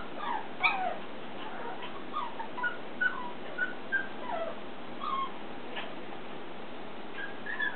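Havana Silk Dog puppy whimpering and yipping: a string of short, high whines, several sliding down in pitch, coming about every half second with a lull before a few more near the end.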